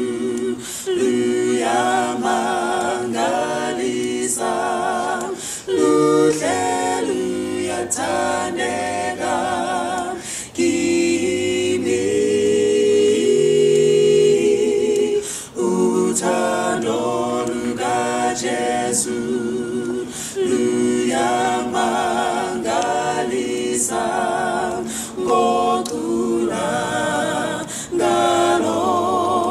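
A small mixed group of men's and women's voices singing a gospel hymn a cappella in harmony, with a long held chord about halfway through.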